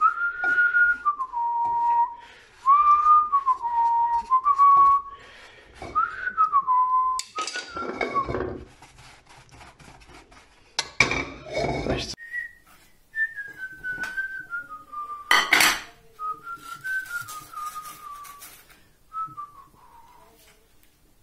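A person whistling a slow melody, over the clatter and scraping of a wooden spatula and utensils against a frying pan a few times.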